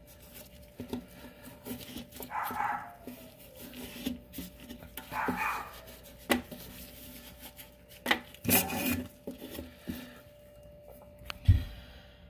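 Gloved fingers scraping old plumber's putty off the rim of a stainless steel sink's drain opening: a run of short scrapes and clicks, with a dull thump near the end.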